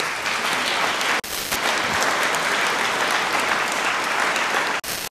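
Audience applauding steadily. The sound drops out for a moment twice, about a second in and near the end.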